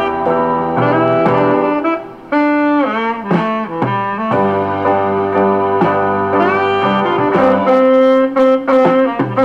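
Instrumental music with a horn melody that slides between notes, over a piano and band backing.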